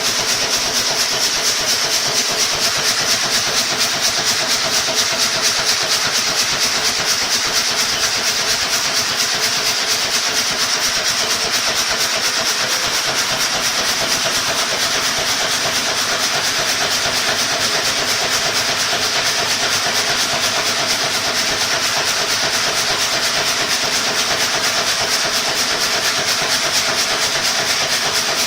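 Sawdust conveyor machinery running steadily: a loud, even hiss with a steady hum beneath it, unchanging throughout.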